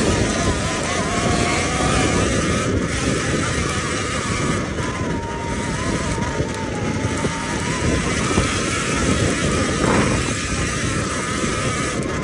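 Sur-Ron electric dirt bike's motor whining while riding along a dirt trail, its pitch rising and falling gently with speed over a steady rush of wind and tyre noise.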